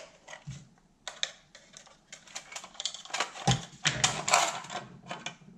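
Sheet-metal case of a vintage electric blanket warmer being worked off its heavy transformer chassis by hand: a run of clicks, scrapes and rattles of metal on metal, busiest about three to four and a half seconds in.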